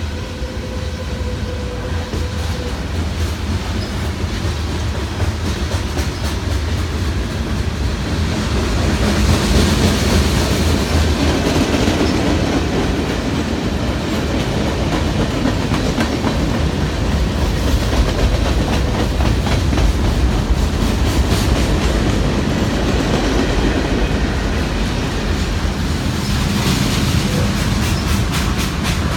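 CN freight train's cars rolling past, their wheels clacking over rail joints in a steady, dense rhythm. The sound grows a little louder about nine seconds in.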